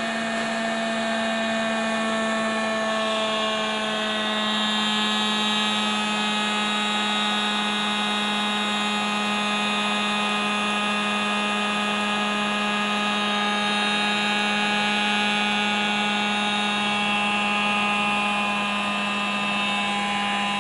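Small handheld hot air gun running steadily, a constant motor whine with a rush of air, blowing heat onto egg-dipped bread in a pan.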